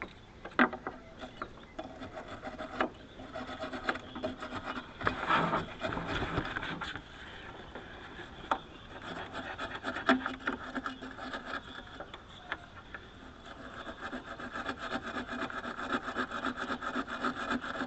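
Hand wire brush scrubbing back and forth in quick strokes, with a few sharp knocks in between; the scrubbing turns steady and rapid near the end.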